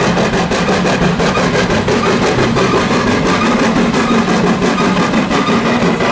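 Steam locomotive dressed as Thomas the Tank Engine running with a train of coaches, its exhaust chuffing in a steady, even beat.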